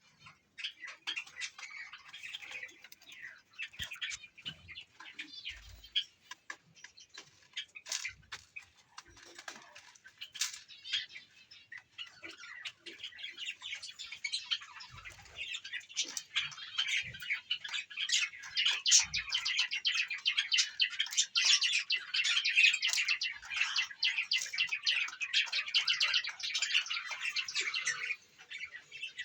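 Pet lovebirds and cockatiels chirping and chattering, sparse with a few clicks and taps at first, then building about halfway through into a dense, continuous chatter that stops shortly before the end.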